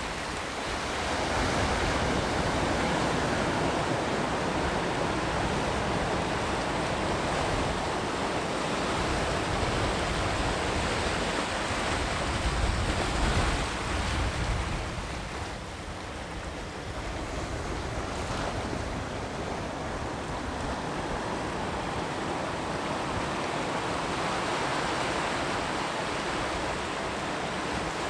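Sea surf breaking and washing on the shore in a continuous rush. It swells to its loudest a little before halfway, then eases off.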